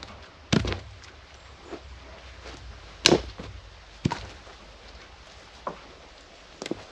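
Firewood being handled: a series of sharp wooden knocks at irregular intervals, the loudest about three seconds in.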